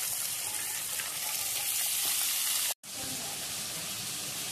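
Julienned carrots and green peas sizzling in oil in a pan: a steady, bright frying hiss. It cuts out for a moment about two-thirds of the way through and comes back a little quieter.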